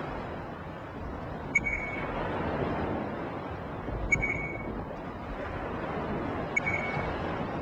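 A steady rushing noise like wind or surf that swells and eases, with a short high electronic beep, each with a click, repeating about every two and a half seconds, three times.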